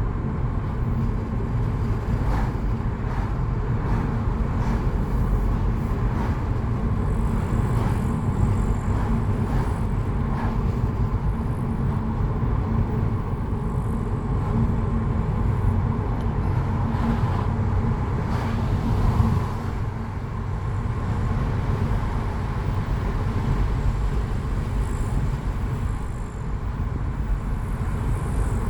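Steady road and engine noise of a car driving, a constant low rumble with faint hum lines and no marked changes.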